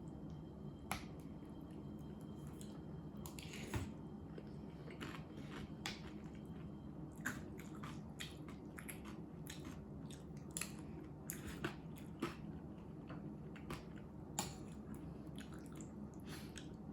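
A person eating close to the microphone: chewing and mouth sounds with scattered light clicks and taps at irregular intervals, over a steady low hum.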